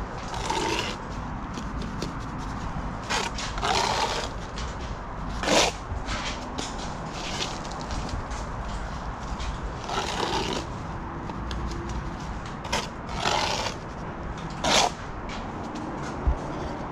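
Steel brick trowel scraping mortar: about six short, rasping scrapes a few seconds apart, over steady background noise, with one short low thump near the end.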